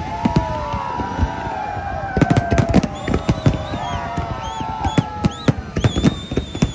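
Aerial fireworks going off in a rapid series of bangs and crackles. Several high whistles glide in pitch and overlap among the bursts.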